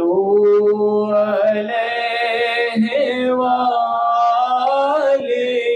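Islamic devotional chanting, a salawat nasheed: a solo voice singing long, held, gently wavering notes that slide between pitches.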